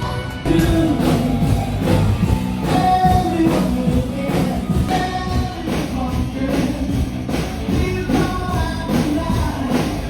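Rock-style background music with a steady beat and singing, getting louder about half a second in.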